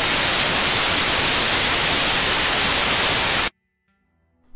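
Loud television static: an even, rushing hiss that cuts off suddenly about three and a half seconds in, leaving near silence.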